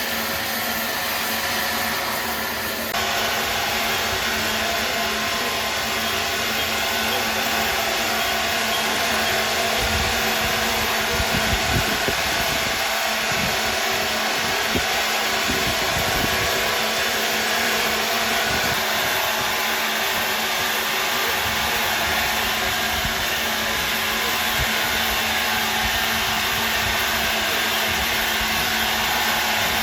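Loud, steady machine whirring and hissing. The sound changes abruptly about three seconds in, and a few low knocks come through near the middle.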